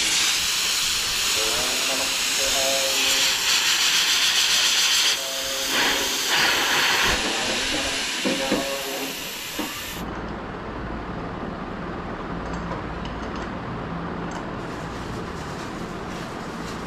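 Residual pressure in the LG split AC's refrigerant line hissing out steadily as the pipe connection at the outdoor unit is opened; the system's gas has already leaked away, so only leftover pressure escapes. The hiss cuts off abruptly about ten seconds in, leaving a quieter low hum.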